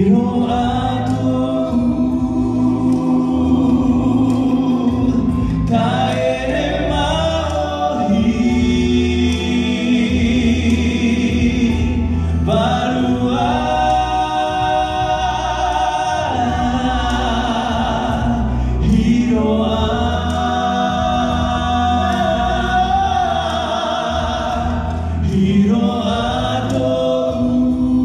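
Three singers, two men and a woman, singing a song together through microphones and a PA, in long phrases with short breaks about every six seconds.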